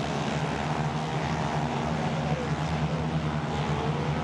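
Racing motorcycle engines on a dirt flat track, running with a steady drone; the engine note rises and falls in the middle as a bike passes.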